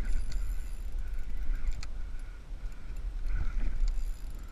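Wind buffeting the microphone: a steady low rumble, with a few faint clicks from handling the fishing rod.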